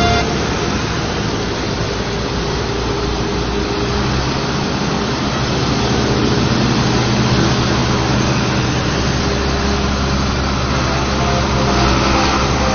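Diesel engines of large farm tractors running as the tractors pass close by, a steady low engine note that grows louder near the end.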